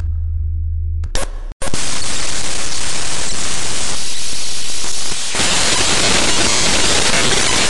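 A low steady hum for about a second, then, after a brief cut-out, loud dense static hiss that fills the rest and grows brighter a little past the middle.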